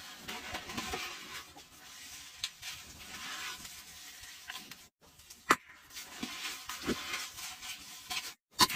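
Gloved hand squeezing and crumbling a clumpy mix of Arm & Hammer powder, scent crystals and Tide detergent: gritty crunching and rustling, with a few sharp crackles about halfway through and near the end.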